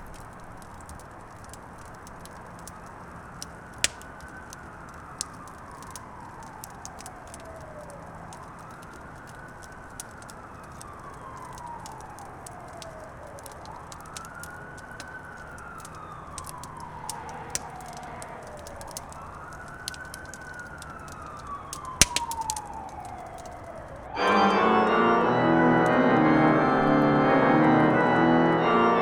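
A faint wailing tone over a hiss with scattered clicks: it rises quickly and then sinks slowly, four times about five seconds apart, like a distant siren. Loud organ music comes in about five seconds before the end.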